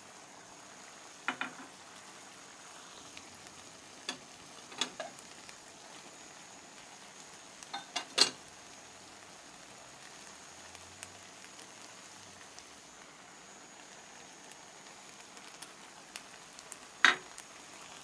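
Chicken, rice and vegetables sizzling in a frying pan, with a handful of sharp knocks against the pan as chopped vegetables are tipped in from a bowl, the loudest about eight and seventeen seconds in.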